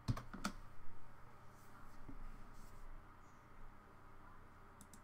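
Computer mouse clicks: two quick clicks just after the start and two faint ones near the end, over quiet room tone.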